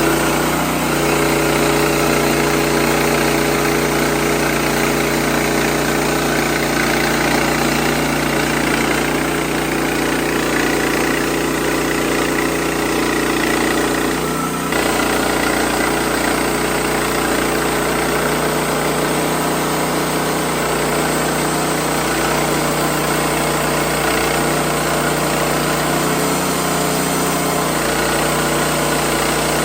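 WoodMizer LX55 sawmill's engine running steadily, with a short dip in level about halfway through.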